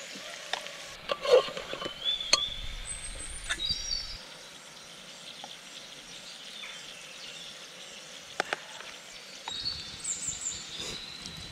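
Curry cooking in a pot with a faint sizzle, and several sharp knocks of a spoon against the pot, the loudest about a second in. Short high chirps come now and then.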